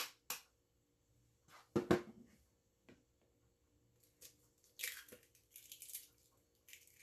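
Eggs being cracked by hand over a plastic bowl: a few light taps, a sharp knock about two seconds in, then crackling of eggshell being pulled apart.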